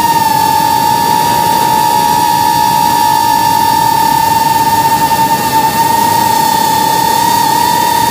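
Brushless motors and propellers of a 3-inch FPV racing drone in flight, heard through the camera on the drone: a loud, steady high whine with overtones over a rushing hiss. The pitch shifts slightly a few times.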